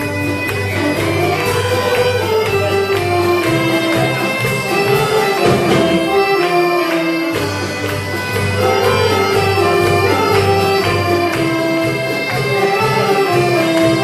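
Saxophone-led wind band playing a lively Galician folk dance tune over a steady beat and a held bass line. The bass drops out briefly a little past the middle, then the band comes back in.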